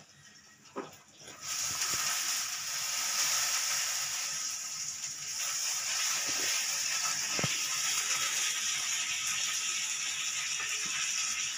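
A steady hiss starts abruptly about a second and a half in and holds level, with a few faint soft clicks.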